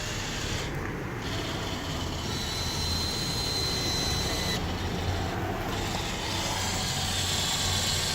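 Small electric motors and gearing of a scratch-built radio-controlled model excavator whirring and grinding as it is worked, with a thin high whine for a couple of seconds in the middle.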